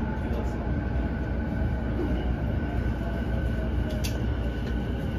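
Interior running sound of a JR East E233-0 series electric train: a steady rumble of wheels on rail with a steady whine over it, and one sharp click about four seconds in.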